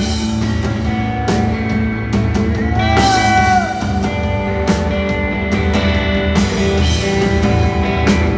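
Live rock band playing an instrumental passage with drums and guitar; a lead line bends up and back down about three seconds in.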